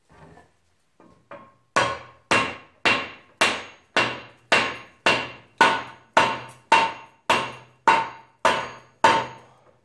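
A piece of wood tapping against the end of a rear axle shaft, driving the axle into a Ford 9-inch rear end housing to seat it. A few light taps come first, then steady blows about two a second, each ringing briefly.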